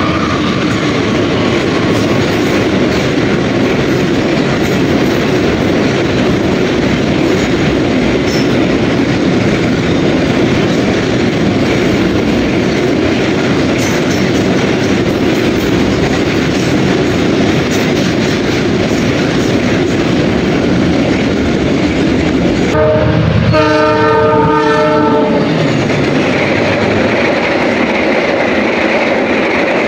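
Diesel-hauled container freight train passing the platform at speed. About 23 seconds in, a train horn blasts for about two and a half seconds, followed by a passenger train running past.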